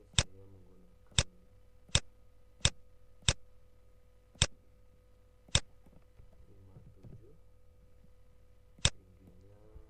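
Computer mouse button clicking, eight sharp single clicks at uneven intervals, most of them in the first six seconds and one more near the end.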